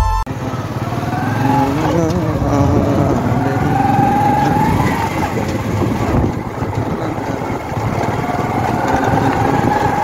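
Motorcycle engine running while the bike is ridden along a dirt road, its note rising and falling with the throttle.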